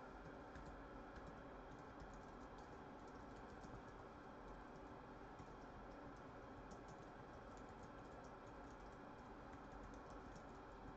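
Faint typing on a computer keyboard: many quick, irregular key clicks throughout.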